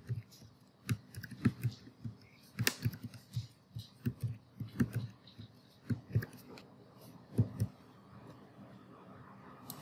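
Irregular keystrokes on a computer keyboard, a few sharper than the rest, thinning out after about eight seconds.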